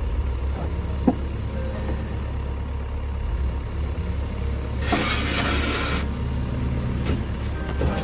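Vehicle engine idling with a steady low drone. About five seconds in, a second of rustling and knocking as the camera is handled and moved.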